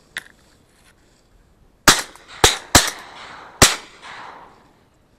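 Four shotgun shots fired at ducks in quick succession, starting about two seconds in and spread over less than two seconds, each trailing off in echo.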